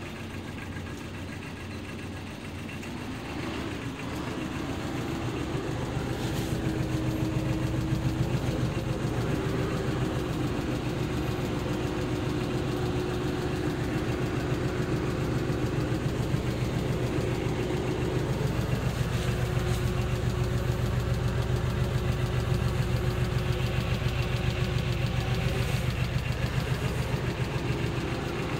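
Aixam Mega D-Truck microcar's small diesel engine idling with a fast, even knock, heard from inside the cab; it grows a little louder several seconds in, then runs steadily.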